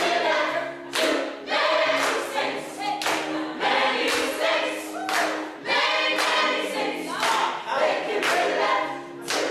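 A mixed ensemble of voices singing together in chorus, with hand claps keeping time.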